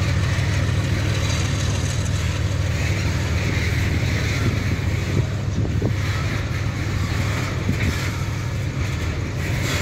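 Freight train's BTPN petroleum tank wagons rolling past on the rails: a steady low rumble, with a couple of faint clicks in the second half.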